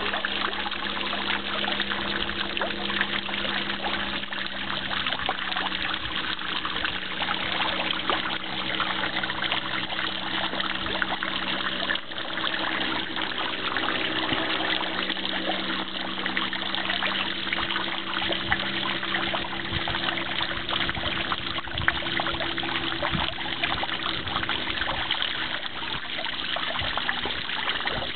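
Steady trickle of water running over rocks into a pond, with a low steady hum underneath.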